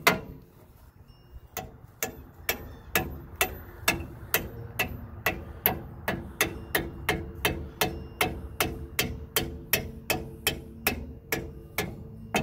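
Hand hammer beating a part of a heavy truck's front disc-brake caliper back into place: a steady run of sharp metal-on-metal blows, about two a second, starting a second or so in.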